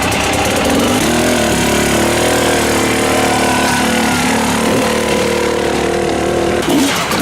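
Enduro dirt bike engine running at fairly steady revs, its pitch shifting slightly a few times.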